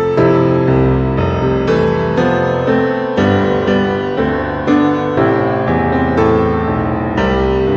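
Background music led by piano, with new notes struck about once or twice a second.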